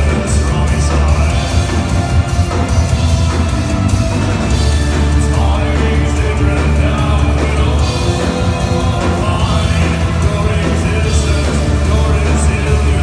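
Live post-punk band playing a song at full volume, with electric guitar, a heavy sustained bass line and drums with steady cymbal hits, heard through a venue PA from within the crowd.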